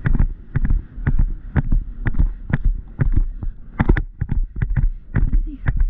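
Hooves of a galloping horse striking turf in an even rhythm of about two strides a second, with wind rumble on the helmet camera's microphone.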